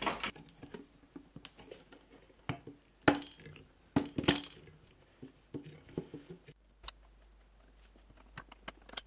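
Light metallic clicks and clinks from hand work on a jointer cutterhead assembly: a clamp pressing a bearing onto the shaft, and circlip pliers fitting a retaining ring into the bearing housing. The sharpest clicks come about three to four and a half seconds in, with a quick cluster of clicks near the end.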